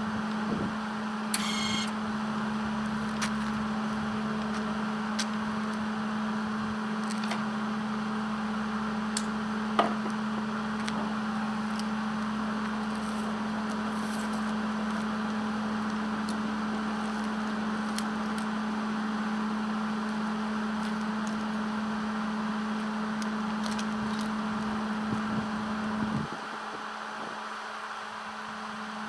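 A steady mechanical hum with a constant tone, with scattered light clicks and clinks over it.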